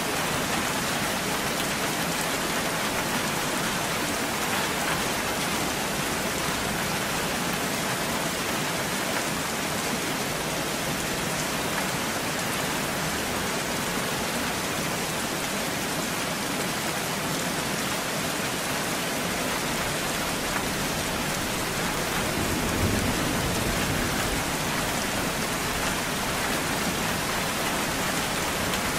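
Steady rainfall, a dense even hiss of raindrops striking surfaces, with a brief low thump about two-thirds of the way through.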